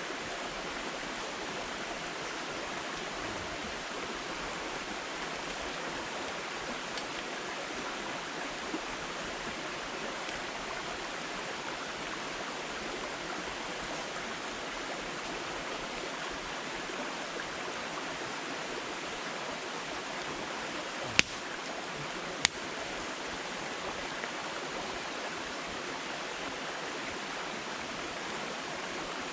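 Firewood burning in a campfire: a steady rushing hiss with two sharp pops about a second and a half apart, roughly three quarters of the way through.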